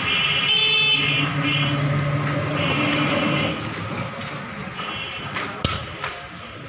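Roadside traffic: vehicles running past with several short, high horn honks. A single sharp metallic clink about five and a half seconds in.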